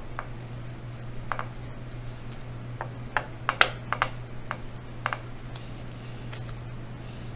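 Fingers pressing and smoothing a sheet of polymer clay onto a clay piece on patty paper, giving scattered light rustles and soft clicks over a steady low hum.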